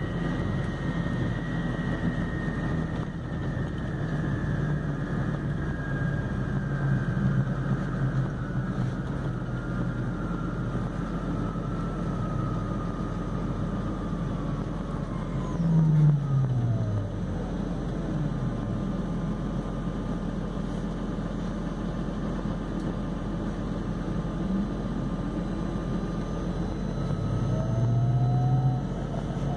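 MAN Lion's City Hybrid city bus driving, its hybrid electric drive whining over a steady road and engine rumble. The whine falls slowly in pitch as the bus slows over the first half, with a brief louder dip about halfway. Near the end it rises again as the bus speeds up.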